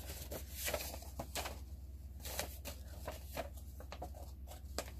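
Paper instruction leaflet rustling and crinkling in the hands as it is unfolded and turned, in short irregular bursts.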